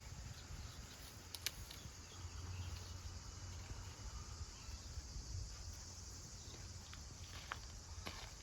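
Faint outdoor ambience: a steady high hiss with a few soft clicks, one about a second and a half in and a few more near the end.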